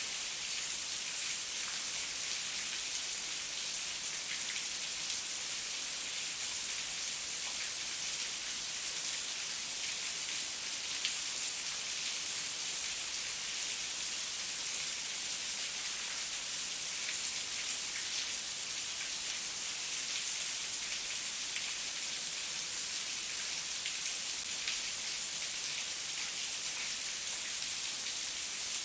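Heavy rain falling steadily, a dense even hiss of drops hitting a surface, with fine individual drop ticks throughout.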